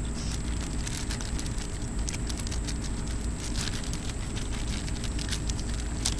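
Clear plastic packaging sleeve crinkling and crackling as it is handled and pulled open, a run of irregular small crackles.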